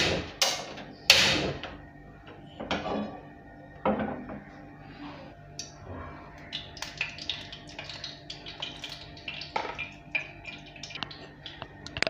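Gas stove knob turned and the burner lit, with three loud clicks in the first second and a half. Then oil poured into a nonstick pan, followed by scattered light ticks.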